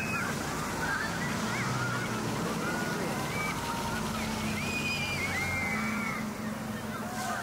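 A crowd of children shrieking and shouting over the steady rushing hiss of fire-hose water spray.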